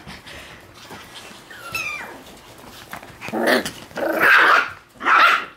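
Shiba Inu puppies play-fighting: a short high whine about two seconds in, then three loud, rough bursts of growling and yapping.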